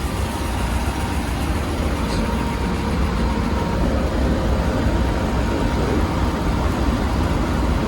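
Stanza two-head belt sanding machine running steadily while a cabinet door feeds through its sanding belts.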